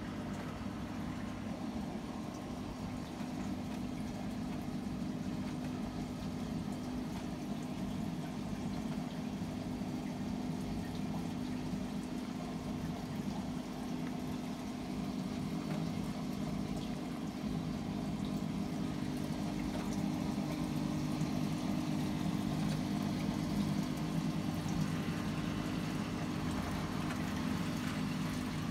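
Aquarium filter pump running: a steady hum with water flowing through the tank.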